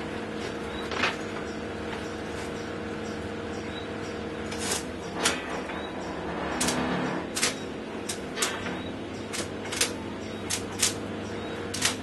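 Stick welder's arc being struck and tacking metal on a bicycle cassette: a series of short, sharp crackling snaps at irregular intervals, starting about a third of the way in, over a steady electrical hum.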